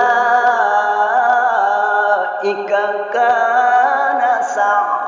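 A man's melodic Qur'an recitation (tilawah) in a long drawn-out, ornamented vowel line, the pitch bending and turning as the note is held, with a short break about three seconds in before it carries on.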